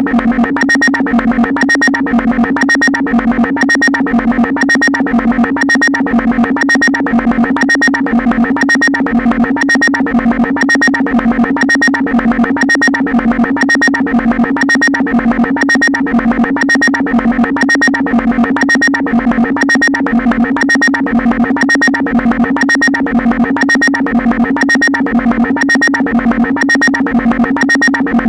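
Synthesizer vocoder sound effect: a steady, unchanging electronic tone pulsing about twice a second in a repeating loop.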